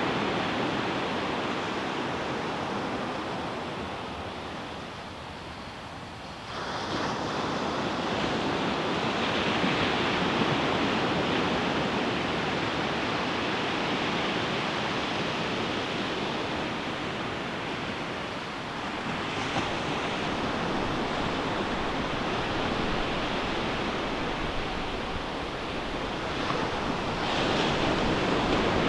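Ocean surf washing on a beach: a steady roar of waves that eases off, then a wave breaks abruptly about a quarter of the way in. Further breakers swell about two-thirds through and again near the end.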